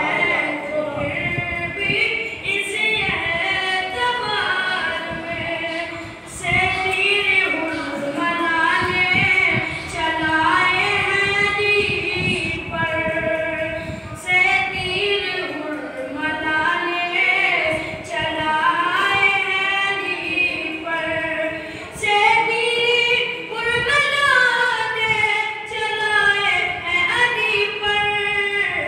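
A boy singing a devotional poem unaccompanied into a microphone, in long melodic phrases broken by short pauses for breath.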